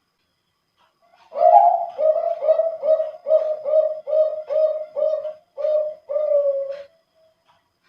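Male zebra dove (perkutut) of a Bangkok contest strain singing one song phrase: a long opening coo, then a run of about ten short coos at an even pace of roughly two to three a second, ending on a drawn-out final note. The coos are low and full, the deep voice prized in contest birds.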